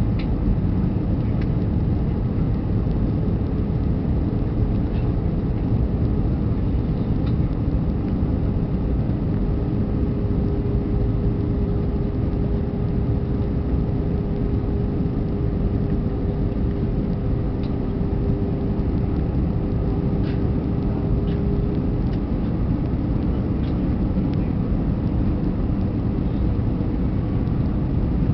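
Steady cabin rumble of an Airbus A320 in flight on approach, the engines and airflow heard from a window seat over the wing. A steady hum sits over the rumble from a few seconds in until about two-thirds through, dropping slightly in pitch partway.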